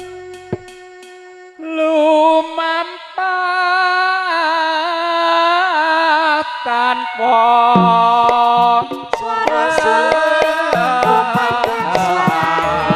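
Campursari music: a held note dies away, and about a second and a half in a solo melody line with wavering, ornamented pitch enters. Drum strokes and the rest of the band join about halfway through, filling out the sound.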